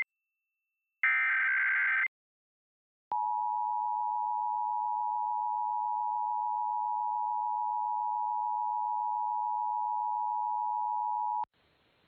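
Emergency Alert System broadcast alert: a burst of SAME header data, a rapid digital warble about a second long, then after a second of silence the steady two-tone EAS attention signal (853 and 960 Hz together), held for about eight seconds before it stops and leaves faint hiss.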